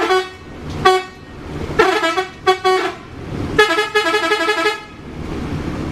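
Telolet bus horn, the multi-tone musical horn of an Indonesian coach, playing a string of short toots, then a quick run of alternating notes lasting about a second, a little past the middle.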